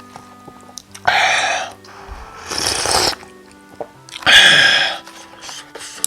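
Three loud slurps of cup noodles or their broth, each under a second and spaced about a second and a half apart, over faint background music.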